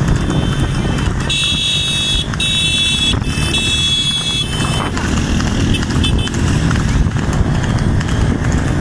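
Motorcycle engine and wind rush at road speed, with the trotting hoofbeats of a horse pulling a racing sulky alongside. About a second in, a shrill high tone sounds three times in quick succession.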